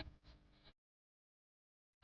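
Near silence: a faint tail of the preceding background music dies away within the first second, then dead digital silence.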